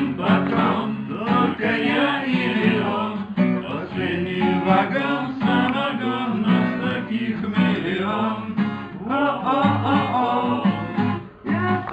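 Singing accompanied by a strummed acoustic guitar.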